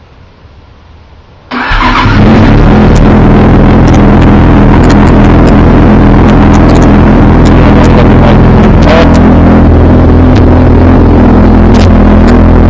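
2003 Yamaha R6's inline-four engine, fitted with a GYTR aftermarket exhaust, cranked over and catching about a second and a half in, then idling steadily and loudly through the exhaust.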